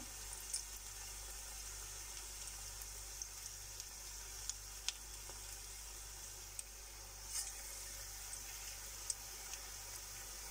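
Onion bonda batter frying in hot oil in a steel kadai: a steady, high-pitched sizzle with a few sharp crackles and pops scattered through it.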